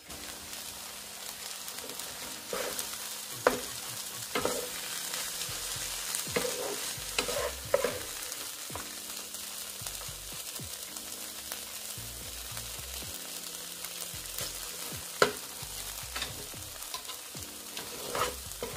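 Crab meat filling sizzling in a frying pan with a steady hiss, stirred with a wooden spatula that scrapes and knocks against the pan now and then.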